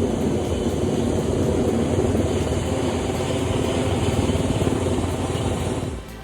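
A large vehicle or machine engine running steadily, with a rapid low pulsing; it cuts off near the end.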